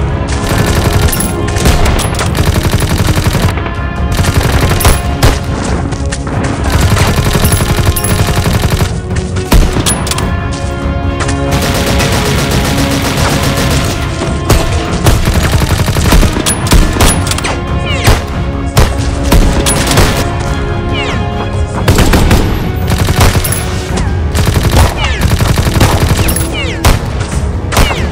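Dubbed battle sound effects: rapid machine-gun bursts and rifle shots, close together, over an orchestral film score.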